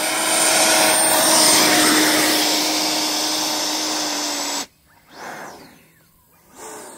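Electric ducted fan of an FMS F-86 Sabre model jet (80 mm fan, 6S) running on the ground: a steady rush of air with a whine. It cuts off suddenly about four and a half seconds in, and a brief, fainter swell of sound follows.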